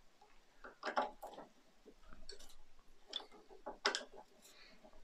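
A few faint, separate clicks and scrapes of a small screwdriver driving tiny screws into the hinge bracket of a die-cast model car's rear door.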